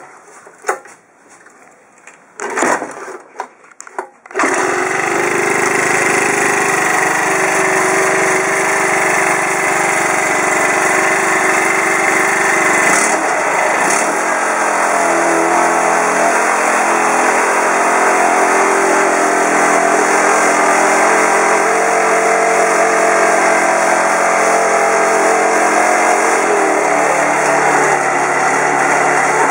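Honda GX31 four-stroke mini engine being started by hand, with a couple of short bursts before it catches about four seconds in, then running steadily. Its note shifts briefly about 13 seconds in and changes again near the end.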